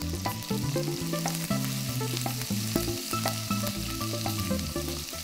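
Ginger paste sizzling in hot vegetable oil while being stirred with a wooden spatula in a nonstick pan, with scattered light scrapes and taps of the spatula against the pan.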